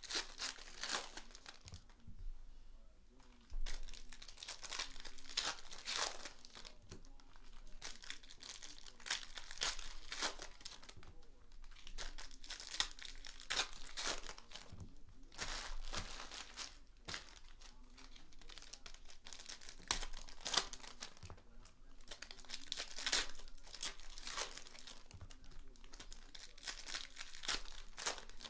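Shiny foil trading-card pack wrappers being torn open and crinkled by hand, a run of irregular crackling rips one after another.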